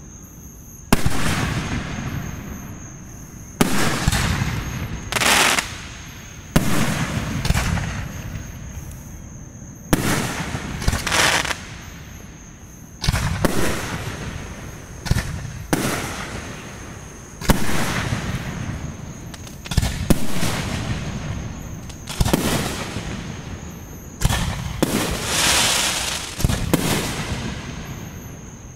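Aerial firework shells bursting one after another, about every two to three seconds. Each burst is a sharp bang followed by a rolling echo that fades.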